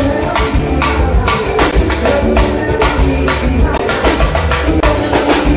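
Live forró band playing loudly: a steady bass line with a regular beat of sharp percussion hits, without singing in this passage.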